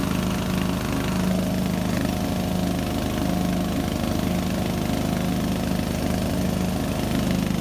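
15.5 horsepower overhead-valve Briggs & Stratton riding-mower engine running steadily at an even speed, now firing normally after its failed ignition coil and spark plug were replaced.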